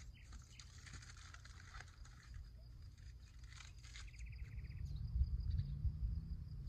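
Outdoor ambience: a low rumble of wind on the microphone that turns gustier and louder about five seconds in. There are a few faint clicks and a brief fast trill near the middle.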